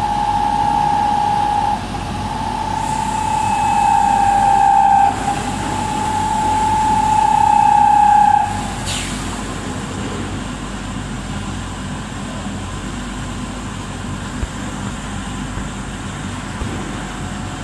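CNC glass working machine running. For the first eight seconds or so a high steady whine comes in three stretches, each growing louder with short breaks between them. After that steady machine noise goes on, with a brief falling whistle about nine seconds in.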